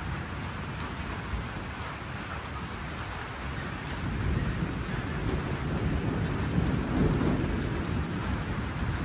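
Steady rain falling through a thunderstorm, with a low rolling rumble of thunder that builds from about halfway through and is strongest near the end.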